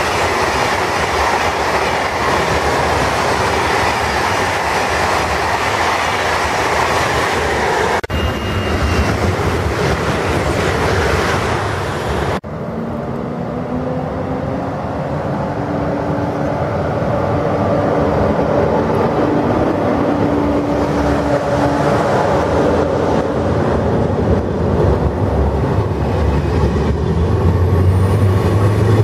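A TGV high-speed train running through the station at speed: a steady, loud rush of wheel and air noise. After a sudden cut about twelve seconds in, another TGV runs alongside the platform, with several steady whining tones from its electric traction equipment over the rumble of the wheels.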